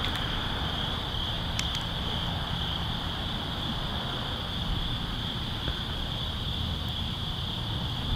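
Crickets chirping steadily in one continuous high band, over a low rumble.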